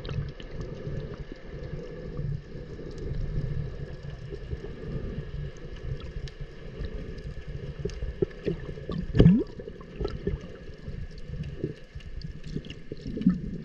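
Underwater sound from a camera held just below the sea surface: a low, muffled sloshing and rumbling of water with scattered small clicks and bubble pops. A louder bubbling gurgle comes about nine seconds in.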